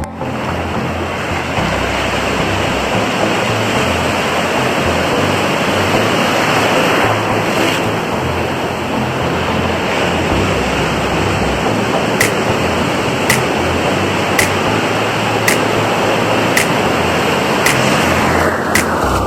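Ocean surf rushing and breaking in a steady, dense wash of noise. About two-thirds of the way in, light ticks begin at roughly one a second, and near the end the surf fades out.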